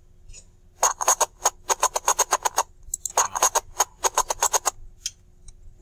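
Rapid, evenly spaced clicking in two runs of about two seconds each, at roughly eight to ten clicks a second, over a faint steady hum.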